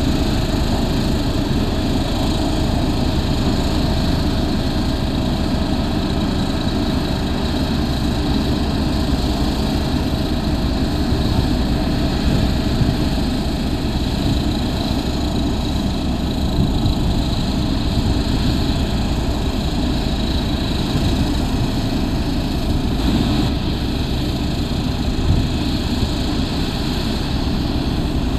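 Diesel engine of an Ammann ASC100 single-drum roller running steadily as the roller drives over the aggregate base, compacting it.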